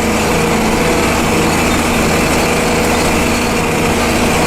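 Diesel engine of a farm vehicle running steadily under way, a constant even drone.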